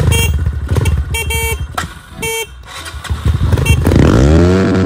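Dirt bike engine running, with a rev up and back down near the end as the throttle is twisted; the engine runs despite the fear of water in the muffler. A few short horn-like toots sound over it early on.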